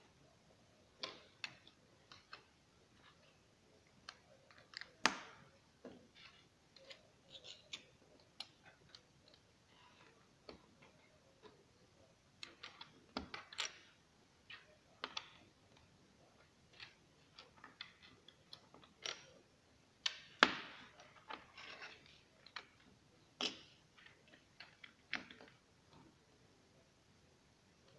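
Small plastic Lego bricks being handled, pressed together and set down on a wooden tabletop: irregular light clicks with a few louder snaps.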